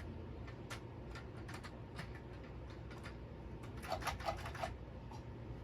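Scattered light clicks and taps, with a quick run of several ticks about four seconds in.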